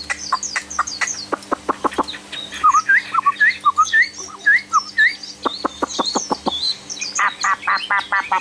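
Chinese hwamei singing: fast runs of sharp, clipped notes, broken in the middle by about five rising whistled notes one after another, then more rapid runs near the end.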